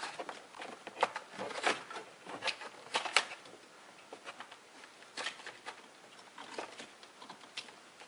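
Irregular light clicks and rustles of a wire and plastic A-pillar trim being handled as the wire is fished down through a car's A-pillar.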